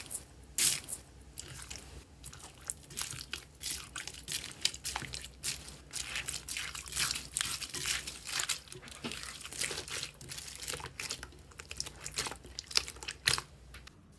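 Crunchy slime being squeezed and pressed by hand, giving a dense run of small crackles and pops with a few louder snaps near the start and near the end.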